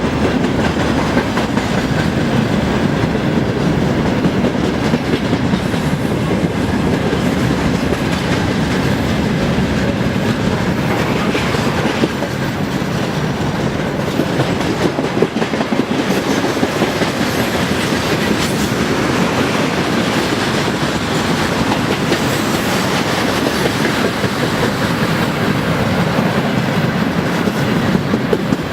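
Freight train's wagons rolling past at speed, wheels clacking steadily over the rail joints.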